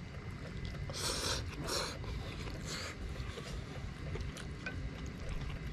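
A person slurping noodles: three short, hissy slurps between about one and three seconds in, over a steady low rumble.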